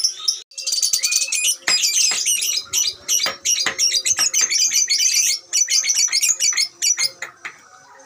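Lovebird chattering in one long, rapid, unbroken run of high chirps and squeaks: the 'ngekek' song prized by lovebird keepers. It breaks off shortly before the end.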